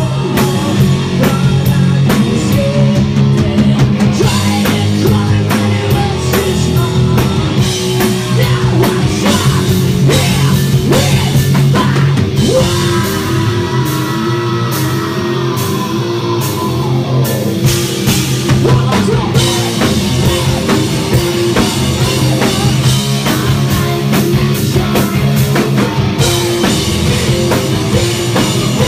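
Live rock band playing loud: electric guitars including a Les Paul-style guitar, bass guitar and a drum kit, with sung lead vocals into the microphone.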